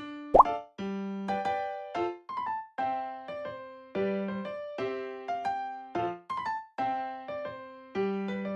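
Background music on an electric piano or keyboard: short plucked chords and notes struck about once or twice a second, each fading quickly, with one quick upward pitch slide just after the start.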